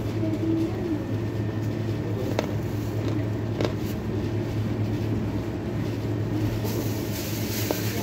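Steady hum of a kitchen extractor hood fan, with a few sharp crunches of a chalky white lump being chewed, about two and a half and three and a half seconds in and again near the end.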